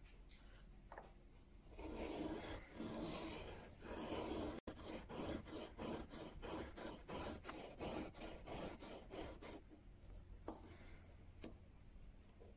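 Steel chisel being honed back and forth on a diamond sharpening plate, a gritty rasping rub. It starts about two seconds in with a few longer strokes, then runs on as an even rhythm of about two to three quick strokes a second, and stops a few seconds before the end.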